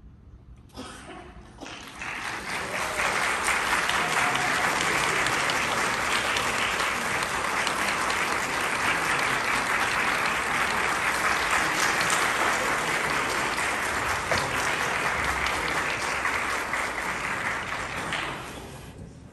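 Audience applauding, swelling in over the first couple of seconds, holding steady, then dying away near the end.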